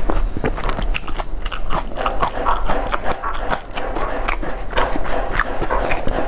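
Close-miked chewing with many short, sharp crunches: a person eating with a full mouth.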